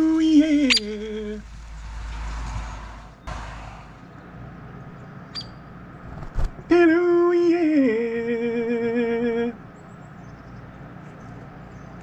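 A man singing a drawn-out 'hello, yeeah' jingle, the call he uses to bring a hairy woodpecker to his hand: a held note that drops in pitch and then wavers. It is sung briefly at the start and again about seven seconds in for nearly three seconds, with a few faint clicks in between.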